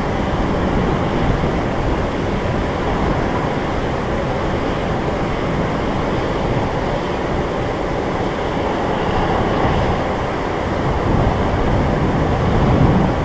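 Boeing 747-400 freighter's four General Electric CF6-80C2 turbofans on final approach, landing gear down: a steady, loud rumble of jet noise that grows a little louder near the end as the aircraft nears.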